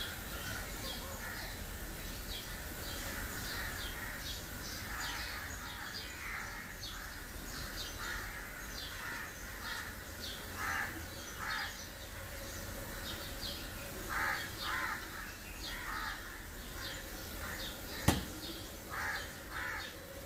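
Crows cawing, a few calls at a time, over steady chirping of small birds. A single sharp click near the end is the loudest sound.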